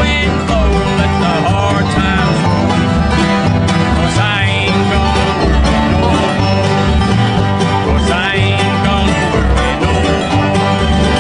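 Acoustic string-band music in bluegrass style, with banjo and guitar over a bass line that changes note about twice a second.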